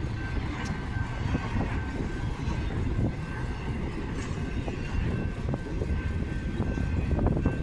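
BNSF intermodal freight train rolling past: a steady low rumble of wheels on rail with scattered clicks and a thin steady high tone.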